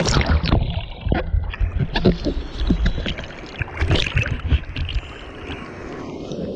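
Sea water sloshing and splashing over a camera held half-submerged in shallow surf: irregular splashes and gurgles over a steady low rumble.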